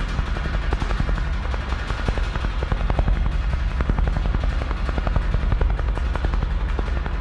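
Drums struck with mallets in rapid, dense, irregular strokes over a deep, steady low rumble, part of a contemporary percussion piece.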